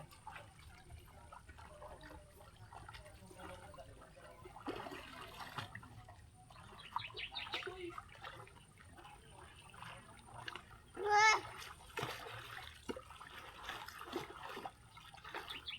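River water splashing and trickling around people at a bamboo raft, with scattered voices in the background. About eleven seconds in, a short high-pitched cry stands out as the loudest sound.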